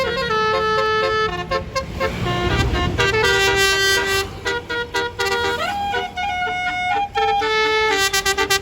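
Bus's musical telolet basuri horn playing a melody of held notes that step up and down, with a rising glide about halfway through, over the low rumble of the bus.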